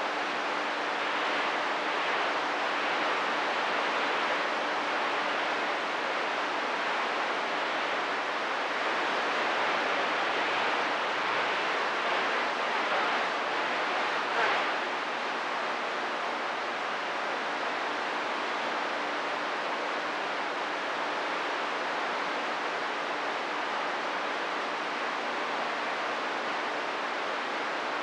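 Radio receiver static: the steady hiss of an open channel between transmissions, with a faint low steady tone underneath and a short crackle about halfway through.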